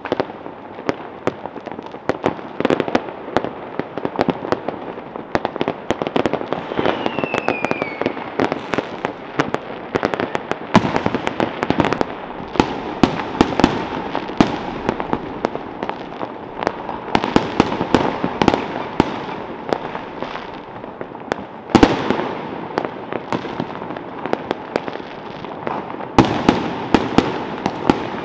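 Many fireworks and firecrackers going off at once: a dense, unbroken run of bangs, pops and crackles. A brief falling whistle comes about seven seconds in, and one especially loud bang a little past twenty seconds.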